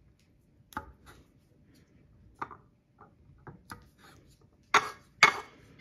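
Wooden spatula knocking and scraping in a non-stick frying pan as a lump of butter is pushed around to melt: a few light taps, then two louder scrapes about half a second apart near the end.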